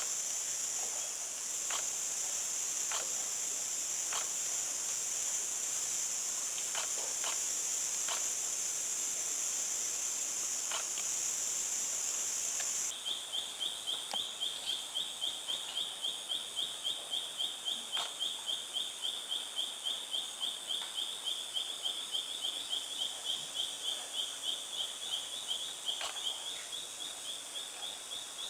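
Rainforest insect chorus: a steady high-pitched drone with scattered sharp clicks, which about halfway through gives way abruptly to a rhythmic pulsing call repeating about three times a second.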